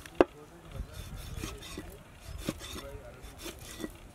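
Knife cutting raw shark fish steaks on a wooden chopping board. The blade scrapes and saws through the flesh and knocks against the board, sharply once about a quarter second in and more lightly a few times later.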